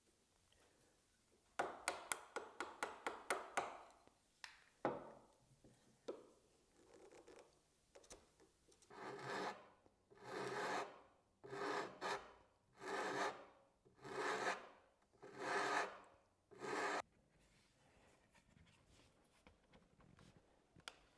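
Hand tool scraping wood off the top and bottom of a tenon to trim it to fit its mortise. A quick run of short strokes comes about two seconds in, then seven longer strokes, roughly one a second, from about nine to seventeen seconds.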